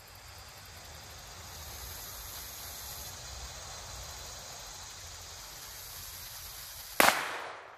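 A single shot from a Ruger LCP .380 ACP pocket pistol about seven seconds in: one sharp crack that dies away within about a second, after several seconds of steady outdoor hiss.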